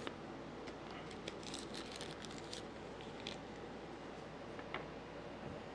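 Faint crinkling of a small plastic parts bag and light clicks of small hardware being handled, in short clusters over the first half and a couple of single ticks later.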